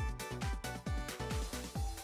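Background electronic music with a steady beat of deep kick drums under sustained synth notes.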